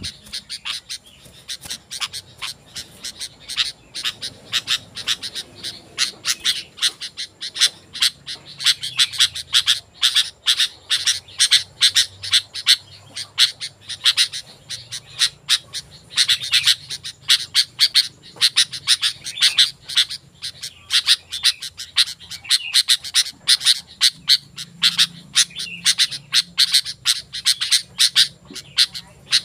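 Sooty-headed bulbuls (kutilang) calling vigorously, a dense, unbroken chatter of short, sharp chirps several times a second.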